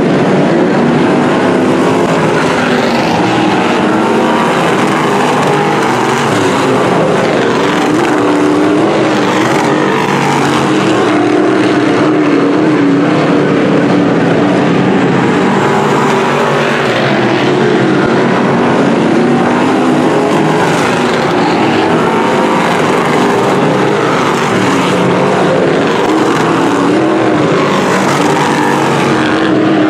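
Several dirt-track sportsman modified race cars' V8 engines running together, their pitch wavering up and down.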